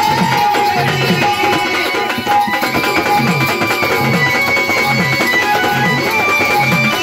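Gavlan, a Marathi folk devotional song, performed with a hand drum playing a steady rhythm of strokes that bend in pitch, under sustained melodic notes.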